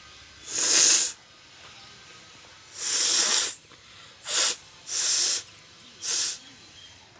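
A person forcefully blowing their nose five times, each a short hissing blast of air, two of them longer than the rest.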